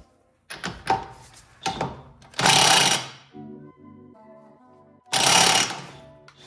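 Background music with two short, loud bursts of a power tool, the kind an air impact wrench makes, about two and a half and five seconds in; a few lighter knocks come before them.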